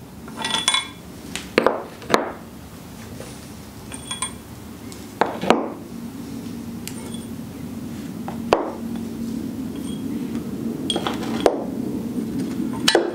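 Steel head bolts clinking and knocking as they are drawn out of a Ford 2.3L cylinder head and set down one by one: a string of separate sharp clinks, some with a short metallic ring. A low steady hum runs underneath and grows louder in the second half.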